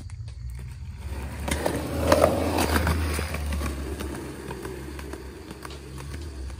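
Skateboard wheels rolling on a concrete sidewalk, with a few sharp clacks. The sound builds about a second in, is loudest around two seconds in, then fades as the board rolls away.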